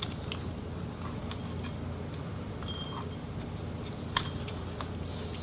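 Scattered small clicks and light metallic taps of a precision screwdriver working the screws of a MacBook Pro's AirPort Wi-Fi card, over a steady low hum; the sharpest click comes about four seconds in.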